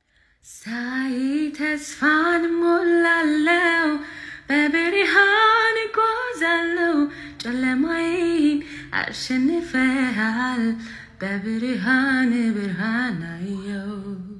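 A woman singing a melody in short phrases of held, wavering notes.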